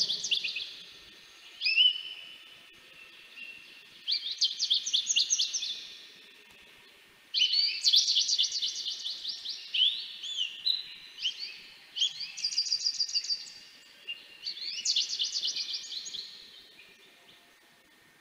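Goldfinch song: about six bouts of rapid, high twittering trills with short pauses between them.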